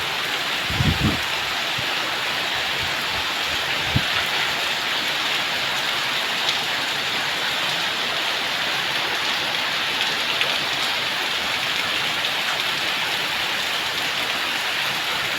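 Heavy rain falling steadily, a dense even hiss, with a couple of soft low thumps in the first few seconds.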